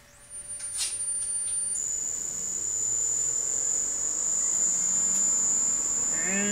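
Variable frequency drive powering up the three-phase motor of a Pratt & Whitney Model C lathe: a click, then a steady high-pitched electronic whine that shifts to a slightly lower pitch about two seconds in and holds, with a faint low hum under it.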